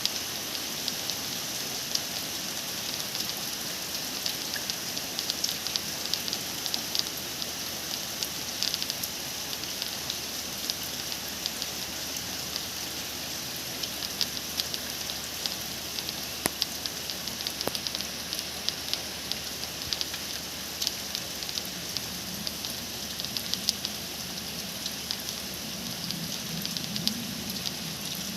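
Steady rain at night, a continuous hiss full of small drop ticks. A faint low hum comes in over the last few seconds.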